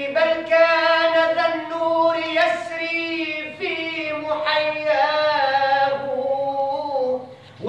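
A male voice singing an Islamic ibtihal, stretching a wordless melismatic phrase over long, ornamented held notes. There is a brief break about halfway, and the phrase fades out shortly before the next line.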